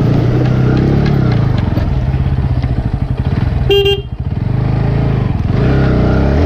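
Bajaj Pulsar NS160 BS6's single-cylinder engine running under throttle as the motorcycle is ridden. A short horn beep sounds a little under four seconds in, and the engine note drops briefly right after it.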